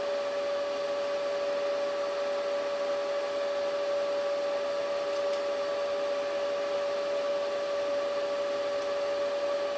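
Steady whir of computer cooling fans with a constant whine, unchanging throughout, and one faint click about five seconds in.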